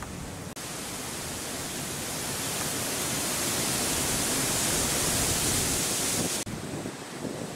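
Steady hiss of falling rain, with wind on the microphone adding a low rumble. The hiss changes abruptly about half a second in and again about a second before the end, and grows louder and brighter in between.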